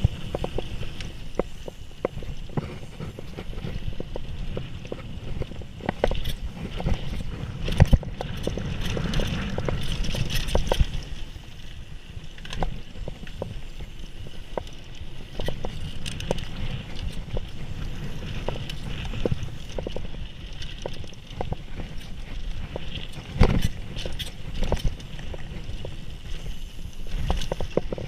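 Mountain bike riding fast down a dirt trail: tyres rolling on dirt and the bike rattling over bumps, under a constant low rumble, with harder knocks about 8 and 23 seconds in.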